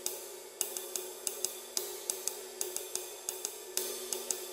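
Paiste Formula 602 Classic Sounds 20-inch thin flat ride cymbal played with wood-tipped drumsticks in a steady ride pattern, about four crisp stick strokes a second over a low, sustained wash.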